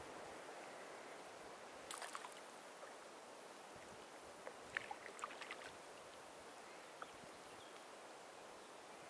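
Faint, steady outdoor background hiss with a few light clicks and taps, a cluster about two seconds in and another around five seconds in.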